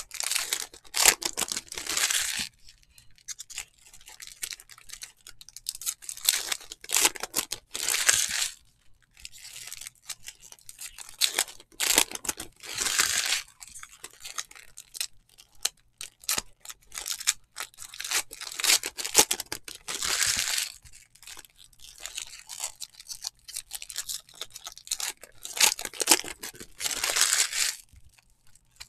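Trading-card pack wrappers being torn open and crinkled by hand, in a loud burst every five or six seconds, with small clicks between.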